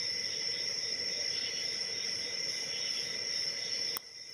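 Faint clicking of a hook pick on the pin stack of a Brinks padlock, which the picker thinks is the pick slipping off the pins, over a steady high-pitched whine. One sharp click about four seconds in, after which the background drops.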